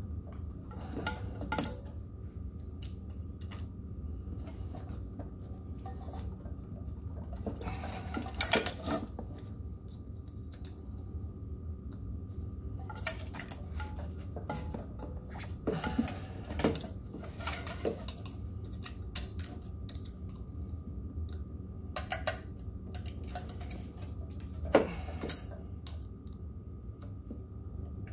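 Scooter tire being worked by hand onto its aluminium wheel rim: scattered clicks, knocks and rubbing as the bead is pushed over the rim, several sharper knocks among them. A steady low hum runs underneath.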